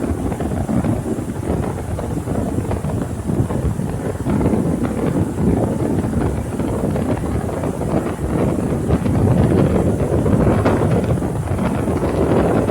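Homemade earthquake sound effect: a continuous, crackling rumble that grows louder in the last few seconds.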